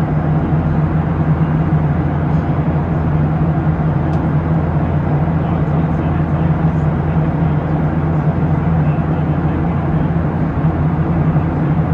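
Steady cabin noise of a Boeing 737-700 in cruise, heard from inside the cabin: a constant rush of airflow over the fuselage and the drone of its CFM56-7B engines, with a strong, even low hum.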